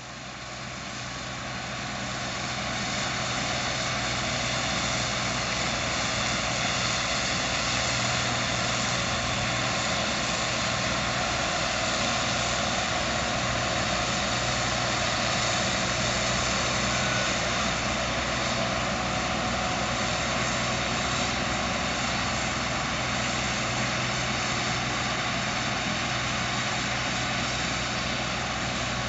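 Case IH 2166 Axial Flow combine harvester running steadily under load while cutting and threshing soybeans, a constant engine and machinery drone. It fades in over the first few seconds.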